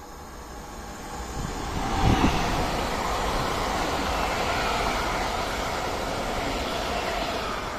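PKP Intercity ED161 Dart electric multiple unit passing at speed: the rumble of its wheels on the rails builds, is loudest as the front goes by about two seconds in, then carries on steadily as the coaches roll past, with a high whine that falls slightly in pitch.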